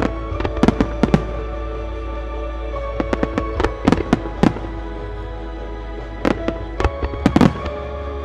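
Aerial firework shells bursting in quick clusters of sharp bangs: a volley within the first second, another from about three to four and a half seconds in, and a third from about six to seven and a half seconds in. Music plays underneath throughout.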